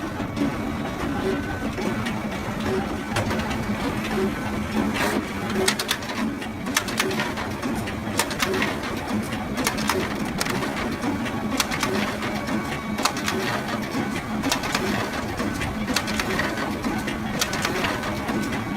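Photocopier running: a steady low hum with frequent sharp clicks and clacks from its paper-handling mechanism.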